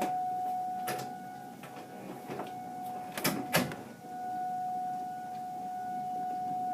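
Tornado warning siren holding a steady tone, with several sharp knocks and clicks over it. The tone drops out briefly a little past three seconds and comes back stronger about four seconds in.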